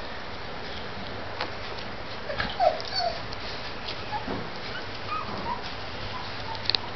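Two-week-old Labrador retriever puppies whimpering, with short, scattered squeaks over a steady hiss. A couple of sharp clicks sound near the end.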